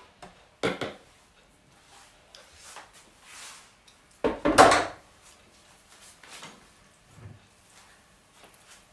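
Kitchen handling noises around an open food processor bowl: a sharp knock about a second in, then a louder clatter lasting under a second midway, and a few faint knocks and rustles.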